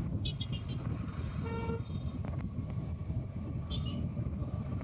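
Riding a two-wheeler in street traffic: a steady low rumble of engine and wind. A vehicle horn sounds briefly about a second and a half in, and there are short high chirps near the start and again near the end.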